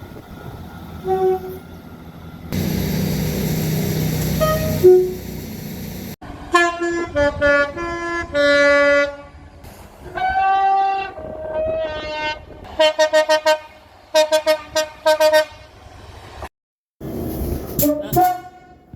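Train horns sounding a series of short toots, some changing between two pitches, then quick runs of rapid repeated blasts, after a few seconds of rushing train running noise. The sounds change abruptly from one short clip to the next.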